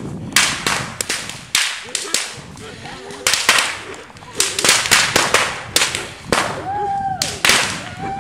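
Bottle rockets and fireworks going off in a burning, gasoline-soaked Christmas tree: a rapid, irregular string of sharp cracks and bangs. Near the end a whistle rises and then holds steady.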